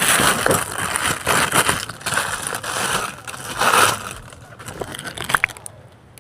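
A parcel's packaging being handled and torn open, a loud crackling and crumpling that is heaviest for about four seconds, then fades to lighter handling with a sharp click near the end.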